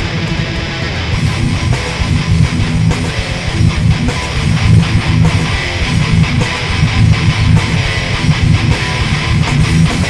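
Hard rock band playing live: loud electric guitar and bass, getting louder about a second in.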